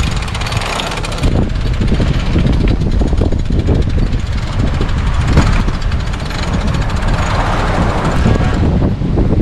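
Mast winch being cranked with a winch handle to hoist the mainsail, its pawls clicking rapidly, over heavy wind noise on the microphone.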